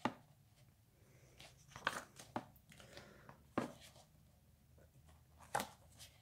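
Glossy pages of a hardcover comic book being turned one after another: several brief paper flicks and rustles, with soft handling of the paper in between.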